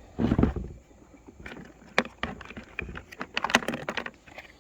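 Hard plastic parts of a septic distribution box being handled: a dull thump about a quarter second in, then a quick, irregular run of light clicks and knocks.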